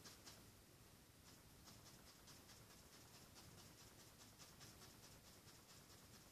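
Faint, quick, irregular strokes and dabs of a paintbrush on canvas, otherwise near silence.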